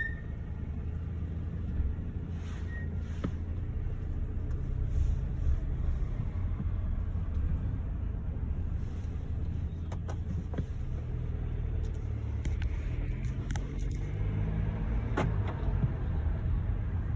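Mercedes GLC driving slowly, a steady low rumble of the car and its tyres, with a few faint clicks; the brake squeal is not heard here.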